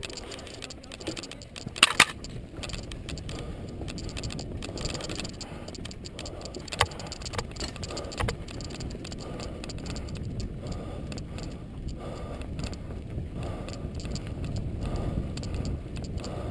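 Mountain bike riding over a bumpy dirt trail, heard from a camera carried on the bike or rider: a steady rumble of tyres and wind with rattling and clicks from the bike. The loudest sounds are two sharp knocks about two seconds in, with single knocks later on.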